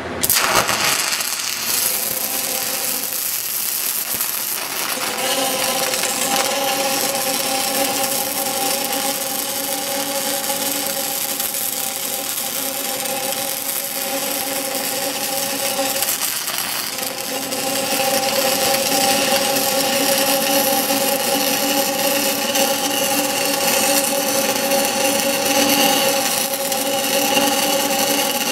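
Stick welding arc crackling and sizzling steadily as an electrode runs an open-root pass on steel pipe at about 92 amps. It strikes up suddenly at the very start and keeps burning without a break.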